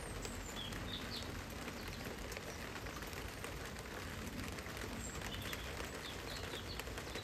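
Steady rain falling on the clear roof panels overhead, with a few short bird chirps.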